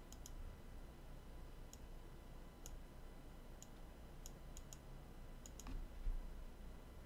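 Computer mouse clicking: about ten faint, sharp clicks at irregular intervals, some in quick pairs, while tools are picked and a selection is made in GIMP.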